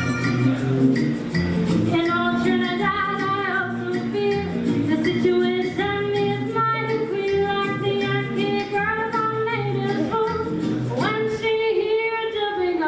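Live 1940s-style vocal group singing in close harmony, male and female voices together, over a small band with upright bass. About eleven seconds in the voices swoop upward together.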